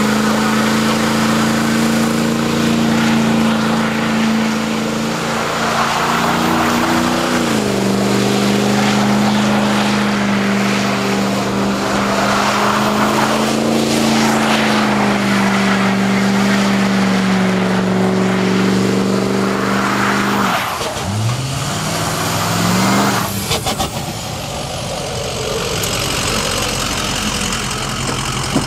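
Ford F-250 pickup doing a burnout: the engine is held at high revs while the rear tyres spin, steady, with a brief step up about seven seconds in. About twenty seconds in the revs drop, climb again in a rising rev, and cut off sharply a couple of seconds later, leaving the truck running more quietly.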